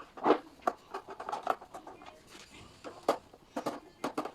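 Irregular clicks, knocks and light clatter from handling a kitchen food waste disposer that has just been taken off the sink.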